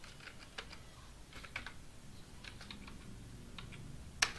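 Computer keyboard typing: scattered, irregular keystrokes, with one sharper, louder key press near the end.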